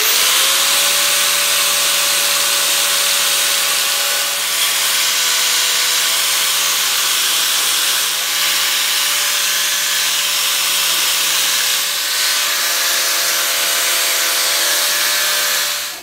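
Craftsman angle grinder with a wire cup brush spinning up with a quick rising whine, then running steadily while it wire-brushes the grime off an old brass hammer head. Its whine holds steady over a loud hiss of wire on metal, dipping slightly now and then as it is pressed on.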